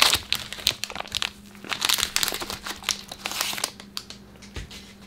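Foil wrapper of a Pokémon Dragon Majesty booster pack crinkling as gloved hands tear and peel it open, an irregular crackling that dies away about four seconds in.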